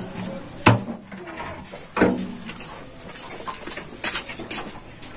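A large plastic water-cooler jug (galon) being handled and hoisted: a sharp knock under a second in, a heavier thump about two seconds in, and a few lighter knocks near the end.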